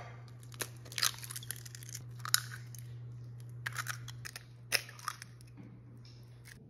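Eggs being cracked into a glass mixing bowl: sharp taps and crunches of breaking shell, a handful of them spread over several seconds. A steady low hum runs underneath.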